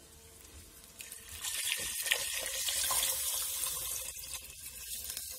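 Water poured from a glass measuring cup into a stainless steel pot of rice and whole spices. It starts about a second in and eases off near the end.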